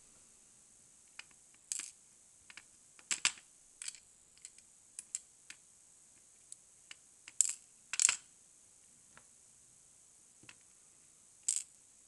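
Small metal parts of a Mul-T-Lock cylinder clicking and tapping as the lock is taken apart over a pinning tray: scattered sharp clicks, the two loudest close together a little past the middle.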